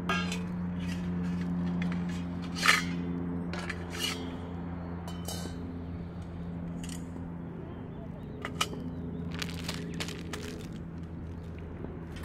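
Scattered clinks and knocks of metal camping gear being handled, the sharpest about two and a half seconds in, over a steady low hum.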